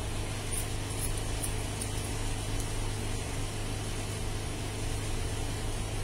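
Steady mechanical room hum, with a few faint, sharp snips of hair-cutting scissors in the first few seconds.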